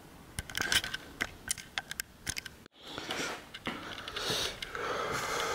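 Handling noise: scattered light clicks and taps with a short scrape, and no engine running.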